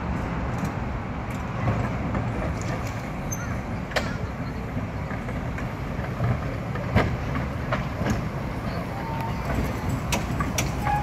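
Vintage electric tram rolling past on its rails: a steady low rumble of wheels and running gear, with a few sharp clicks along the way.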